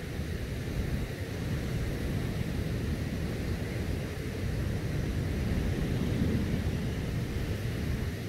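Strong wind buffeting the microphone, a steady low rush that rises and falls slightly, with the wash of breaking surf mixed in.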